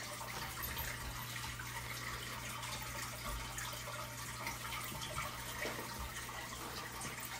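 Quiet room tone: a steady hiss under a constant low hum, with a few faint soft ticks.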